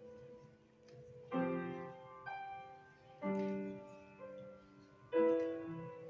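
Grand piano played solo: three loud chords struck about two seconds apart, each left to ring and fade, with quieter single notes between them.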